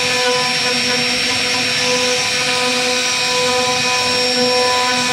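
CNC router spindle running steadily while its small carving bit cuts a relief pattern into a wooden panel: a constant whine with even overtones over the rushing noise of the cut.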